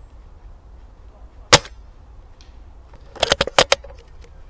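A single sharp shot from a Novritsch SSG24 spring-powered bolt-action airsoft sniper rifle, then a rapid cluster of five or six sharp clicks and knocks about two seconds later.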